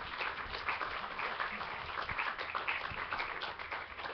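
Audience applauding, a dense crowd of hand claps that thins and dies away near the end.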